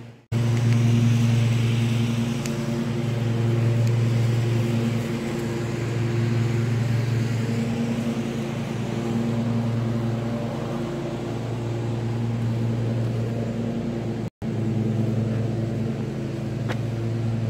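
A steady machine hum, even and unchanging, cut off for an instant about three seconds before the end.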